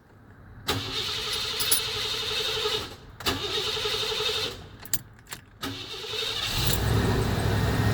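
Old Ford van's starter cranking the engine in two bursts of about two seconds each that don't catch, then a third crank on which the engine fires, about six and a half seconds in, and runs on at idle. The slow start comes from the fuel pump not being primed before cranking, as the owner takes it.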